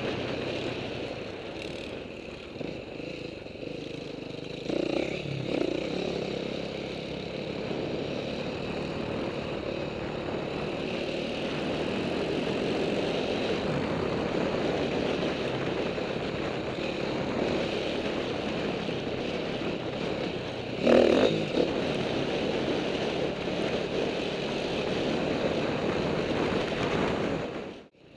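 Dirt bike engine running under throttle on a trail ride, heard through a helmet-mounted camera. There are louder thumps about five and twenty-one seconds in.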